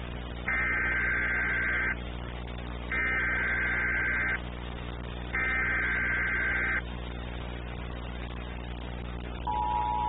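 Emergency Alert System header data tones: three raspy digital blasts, each about a second and a half long with short gaps between them. The steady two-tone EAS attention signal begins about half a second before the end. A constant mains hum from the tape runs underneath.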